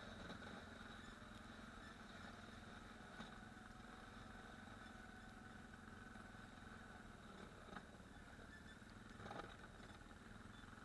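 ATV engine running faintly and steadily, with a few faint knocks.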